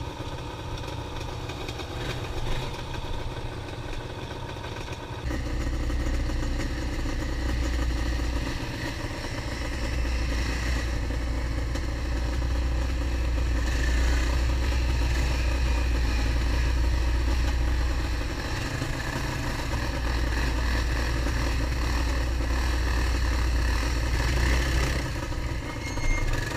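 ATV engine running steadily as the quad rides through mud and wet grass. About five seconds in the sound steps up abruptly, louder and with a heavy low rumble underneath.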